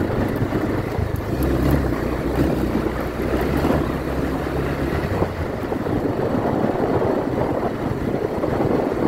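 Motorcycle engine running as the bike rides along an unpaved dirt road, with wind noise on the microphone and the rush of the tyres on loose dirt.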